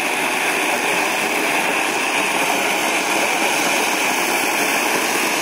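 Ground fountain firework (flower-pot type) spraying sparks with a steady rushing hiss.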